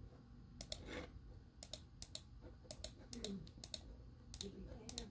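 Faint, irregular clicking of computer keyboard keys being pressed, about a dozen quick clicks.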